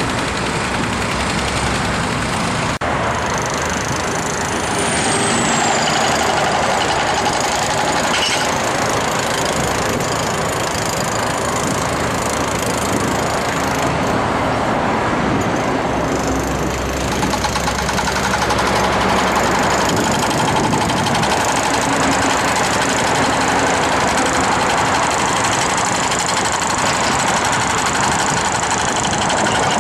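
Continuous road-vehicle noise: a steady rush of engine and road sound with no clear single event.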